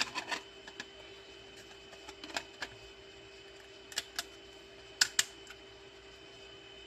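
Small clicks and taps of 3D-printed plastic parts being handled as a printed washer is slid onto a printed bolt, with a sharp pair of clicks about five seconds in. A faint steady hum runs underneath.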